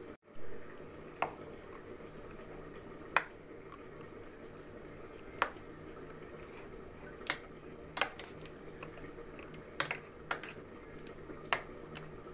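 A metal spoon clinking against a steel tiffin box while spreading thick mustard paste over fish pieces: about nine sharp, irregular clicks over a low steady hum.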